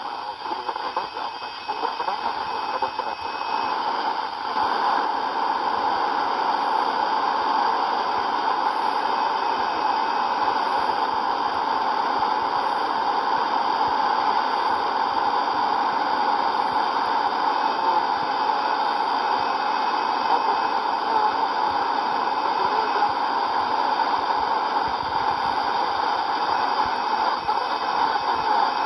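CB radio receiver on FM putting out a steady hiss of static through its speaker. For the first few seconds the hiss is choppier, with a faint steady whistle over it.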